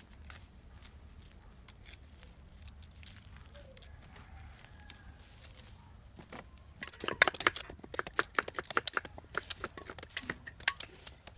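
Knives working raw cassava (tapioca) roots: faint scraping and crackling of peeling at first, then about seven seconds in a quick run of loud, crisp knife cuts as the peeled roots are chopped into small chunks.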